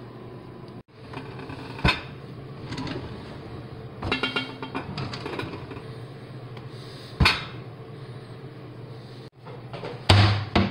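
A Merillat kitchen cabinet's pull-out shelf worked on its repaired drawer track: sharp knocks at about two and seven seconds, and a run of clinking from the glass and metal bakeware on the shelf around four seconds in. Near the end comes the loudest knock, as the cabinet door shuts.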